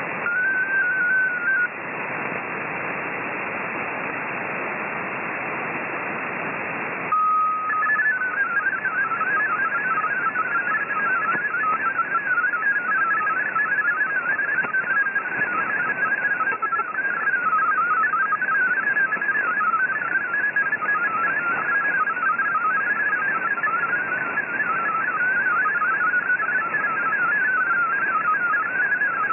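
MFSK32 digital text signal received on shortwave: a continuous warble of rapidly hopping beeps at a middle pitch over radio static hiss, starting about seven seconds in. Before it there is a brief tone in the first second and a half, then only hiss.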